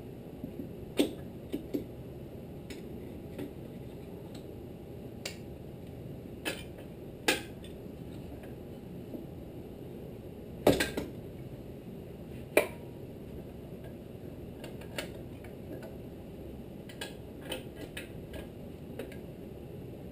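Socket, extension and T-bar handle clinking and clicking against the flywheel nut and each other as the tools are fitted and worked, in scattered sharp metallic clicks, the loudest a pair about halfway through. A steady low hum runs underneath.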